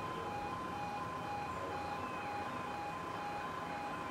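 Railway level crossing alarm sounding: two tones alternating evenly, a few changes a second, over a faint rumble from the approaching train.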